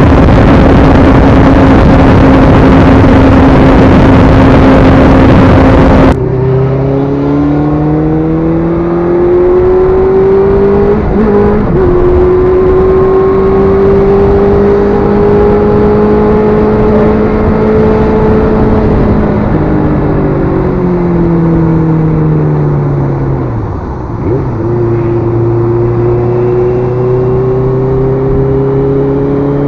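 Motorcycle riding heard through an action camera's microphone. For about six seconds heavy wind noise covers a steady engine hum. Then the sound cuts abruptly to a duller, clearer engine note that rises and falls with throttle and gear changes, the wind rush much reduced as with a foam wind cover on the camera.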